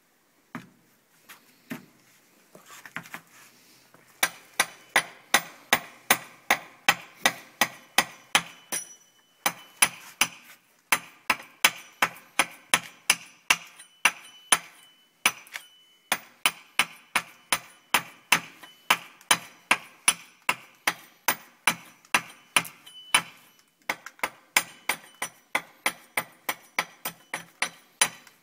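A hatchet hewing a wooden bow stave in short, quick chops, each a sharp knock with a slight metallic ring. After a few scattered knocks, the chopping settles about four seconds in to two or three strokes a second, broken by brief pauses.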